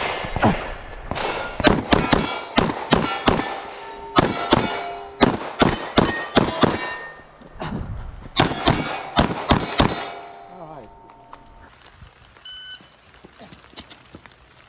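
Rapid pistol shots at steel plates, each hit ringing out with a metallic clang, over about the first ten seconds. It then goes quieter with a few faint clicks and a short beep a couple of seconds before the end.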